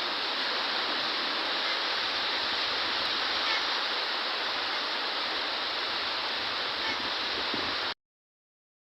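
Heavy rain pouring down in a storm: a dense, steady hiss that cuts off suddenly about eight seconds in.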